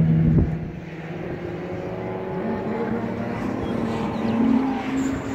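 A car engine at racing speed on a track, its note climbing about two seconds in as it accelerates and then holding steady. A knock about half a second in.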